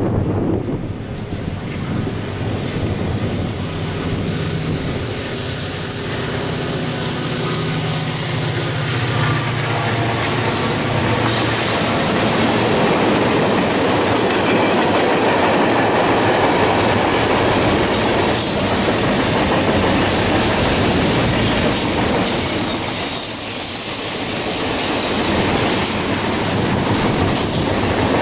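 Double-stack intermodal freight train rolling past: a steady rush of steel wheels on rail with clickety-clack over the rail joints and high wheel squeal. A low diesel locomotive hum is heard in the first ten seconds or so and then fades.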